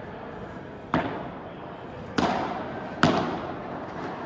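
Padel rally: three sharp hits of the ball on rackets and court, about a second apart, each with a short echo.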